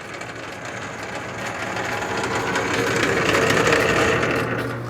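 South Bend 10K lathe running in back gear, its gear train giving a dense, rattling mechanical noise that is a little loud, growing louder before it falls away near the end. The teeth are not chipped; the noise is put down to dry gears that need cleaning and oiling.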